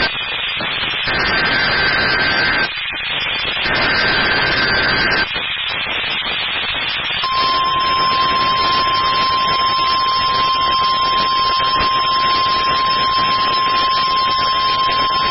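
NOAA Weather Radio emergency alert signal received over hiss. First come two rasping bursts of SAME digital header data, about a second and a half each with a second's gap. Then, after a few seconds of static, the steady 1050 Hz weather radio warning alarm tone starts about seven seconds in and holds.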